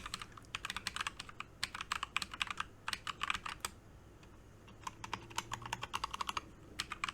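Typing on a mechanical keyboard with brown switches: quick runs of key clacks, pausing for about a second near the middle, then starting again.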